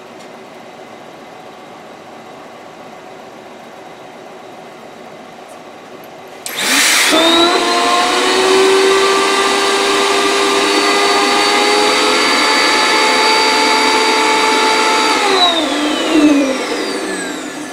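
Vacuum motor switched on about six and a half seconds in, rising quickly to a loud steady whine as it sucks the heated plastic sheet down over the 3D-printed buck, then switched off near the end and winding down with falling pitch.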